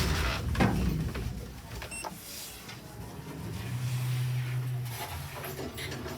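Otis Gen2 lift running: knocks as the doors close, then the car's drive with a low steady hum for about a second and a half midway.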